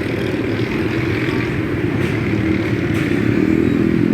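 Motorbike engines running in street traffic, a steady rumble that grows a little louder and higher in pitch near the end.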